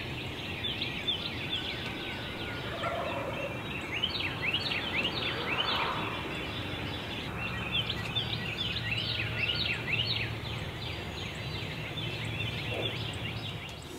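Distant Rio Grande wild turkey gobbling about six seconds in, over a dawn chorus of songbirds giving many quick, repeated falling chirps.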